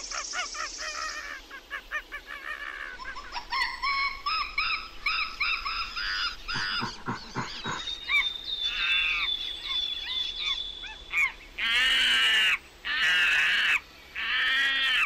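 Animal calls: a long run of quick, repeated chirping notes, then three loud, harsh calls of about a second each near the end.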